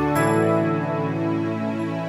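Instrumental backing track of a Kuki gospel song, with no vocals: sustained chords, changing to a new chord just after the start.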